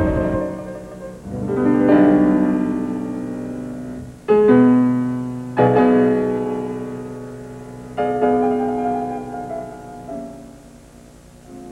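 Solo piano music: slow chords struck about every two seconds, each left to ring and fade before the next.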